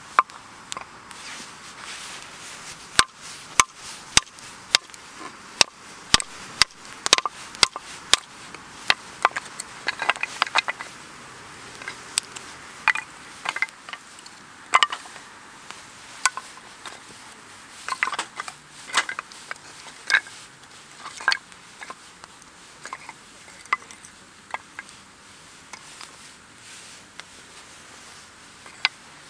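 Wood campfire crackling, with many sharp, irregular pops over a soft steady hiss.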